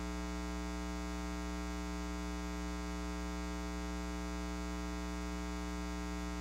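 Steady electrical mains hum: a low hum with many evenly spaced higher overtones, unchanging in pitch and level.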